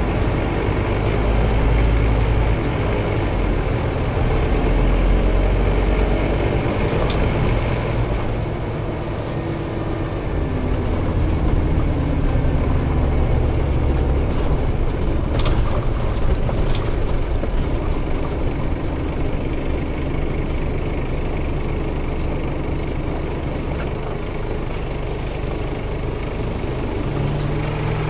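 Engine of a Scania CN270UB city bus running, heard from inside the passenger cabin as a steady low drone whose pitch shifts a couple of times, with a few sharp clicks.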